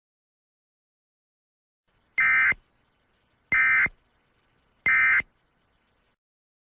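Emergency Alert System end-of-message signal: three short, identical bursts of SAME digital data tones about a second apart, marking the close of the alert message.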